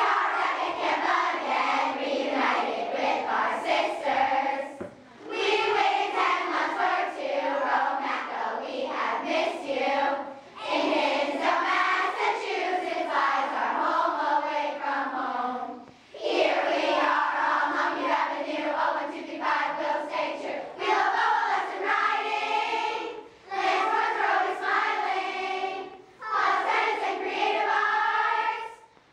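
A large group of girls singing a pep song together without accompaniment, line by line, with short breaks between phrases every few seconds.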